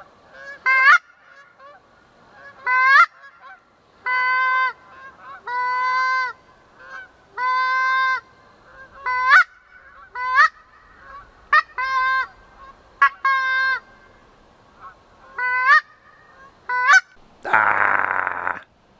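Geese honking repeatedly and loudly, a mix of short honks that rise at the start and longer held ones. A brief burst of rushing noise comes near the end.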